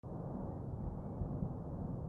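Steady low rumble of the erupting Cumbre Vieja volcano.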